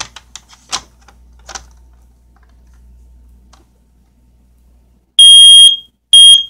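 Kidde i9030 ionization smoke alarm's horn sounding on test: two loud, shrill high-pitched beeps near the end, the first about half a second long and the second shorter. A few clicks come first.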